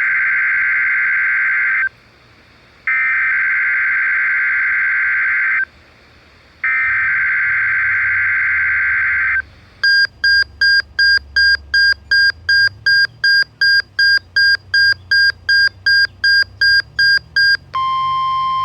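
NOAA Weather Radio's digital alert header: three buzzy bursts of warbling data tones, each about two to three seconds long with short gaps, marking the start of the Required Weekly Test. They are followed by a run of rapid electronic beeps, about two and a half a second. Near the end a steady single tone near 1 kHz begins.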